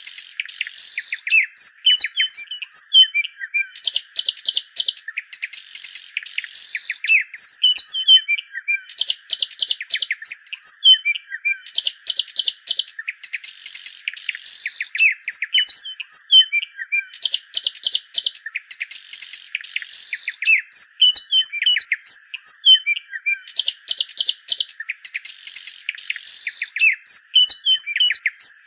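Bird song: a phrase of rapid trills and short chirps, repeating about every three seconds.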